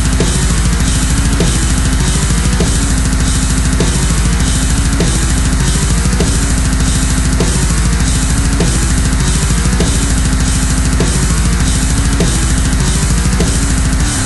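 Loud heavy metal music with fast, steady pounding drums and distorted guitars.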